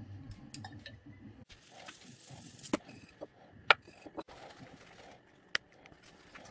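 Kitchen prep sounds: a few sharp clinks of crockery, the loudest just past halfway, over a soft rustle as a tuna steak is pressed into a plate of sesame seeds.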